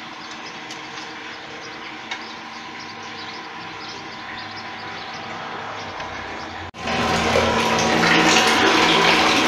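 Water rushing and splashing from a just-repaired submersible pump under test, over a faint steady hum. About seven seconds in the sound cuts out for an instant and comes back much louder.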